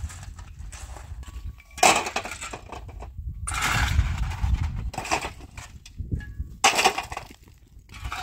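Stony rubble being broken up and shifted with a long-handled digging tool: sharp knocks on stone, the loudest about two seconds in and another near the end, with a longer spell of scraping and crunching in the middle, over a steady low rumble.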